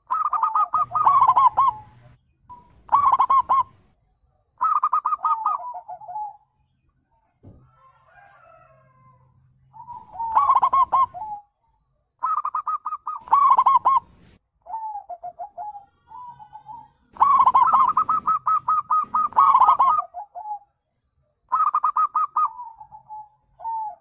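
Zebra doves (perkutut) singing: phrase after phrase of rapid, staccato cooing notes, each phrase one to two seconds long, with a quieter gap near the middle and two songs overlapping in the second half.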